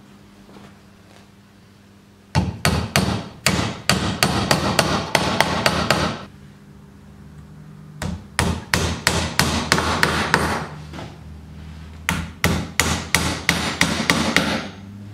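Claw hammer striking wooden pegs into the joints of a softwood window frame. The strikes come in three runs of quick blows, about four a second.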